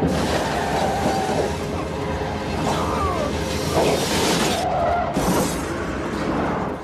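Metal grinding and screeching as a car's body scrapes along the road surface, a continuous harsh scrape with a few brief squeals.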